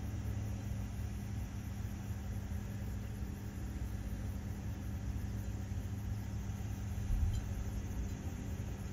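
Steady low engine rumble with a constant low hum, and a brief louder bump about seven seconds in.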